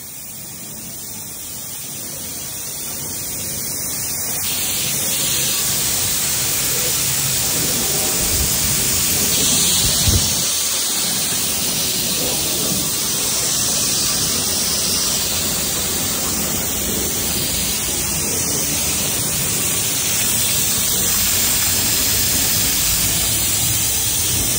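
A water jet from a hose spray nozzle hissing and splashing as it rinses foam off a car body, building over the first few seconds and then holding steady. A brief thump about ten seconds in.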